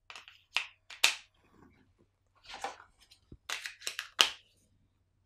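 AA batteries being pressed into a plastic TV remote's battery compartment: a string of short clicks and knocks, one cluster in the first second and another between about two and a half and four seconds in.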